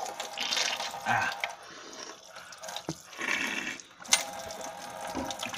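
Faucet running into a sink while a person drinks and rinses his mouth under the stream, with a few louder bursts of splashing.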